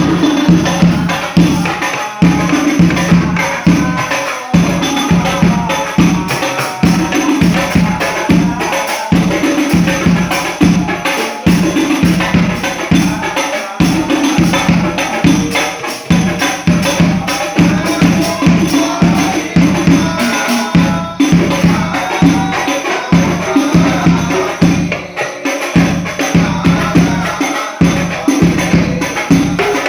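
Rebana frame drums, some with jingles, beaten in a fast, dense, steady rhythm as accompaniment to sholawat.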